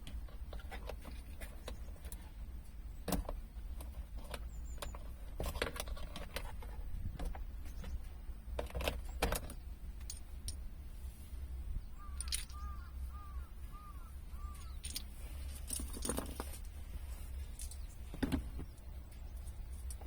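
Scattered clicks and light knocks of small parts and tools being handled, with a short run of five or six high chirps about twelve seconds in, over a low steady hum.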